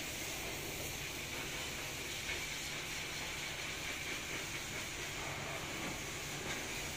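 Steady background hiss and low rumble with no distinct events.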